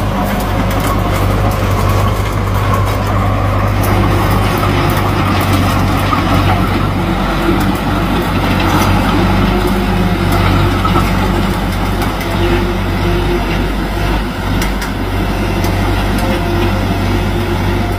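Diesel engine of a small modified crawler tractor running steadily at an even, unchanging speed.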